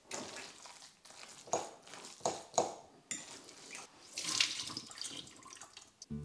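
A fork clicking and scraping against a ceramic bowl as it mixes cottage cheese, then, about halfway through, water splashing into a sink as the soaking water is poured off raisins through a sieve.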